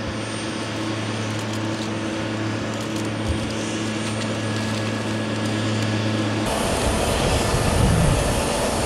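Steady low engine hum from an aircraft tow tractor towing a Boeing 767 at walking pace. About two-thirds of the way through it changes abruptly to a rougher, louder airport apron noise with more rumble.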